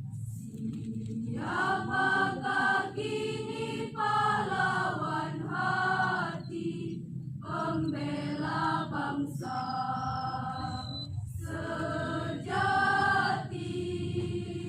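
A choir singing, in held phrases of a few seconds each with short breaks between them.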